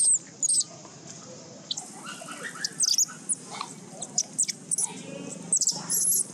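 Baby monkey making repeated short, high-pitched squeals in quick runs, loudest at the start and again just before the end.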